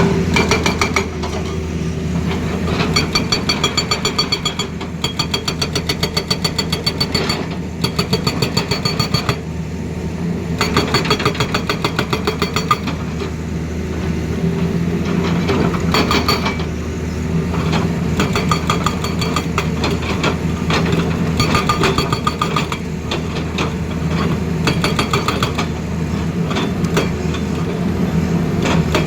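Hydraulic breaker (rock hammer) on a Tata Hitachi Zaxis excavator hammering in rapid, evenly spaced blows, in stretches with short pauses, over the excavator's steady diesel engine drone.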